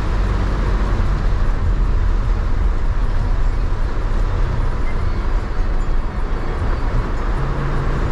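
Inside a Toyota van's cabin in heavy rain: a steady low engine and road rumble under an even hiss of rain on the roof and windshield.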